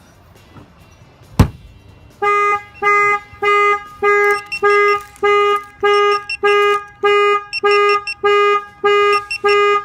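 A single sharp knock, a shock that sets off the alarm's shock sensor, then a second later a Clifford 3305 car alarm fires off: a loud, steady-pitched honking tone repeating evenly a little under twice a second.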